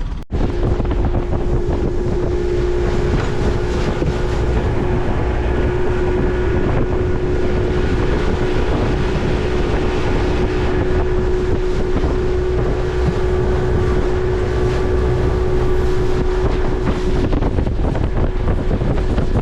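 A boat motor running at a steady pitch, with wind buffeting the microphone.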